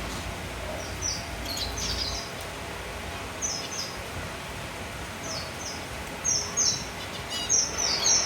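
Zebra finches in a colony cage chirping: short high calls, often two in quick succession, coming more often toward the end.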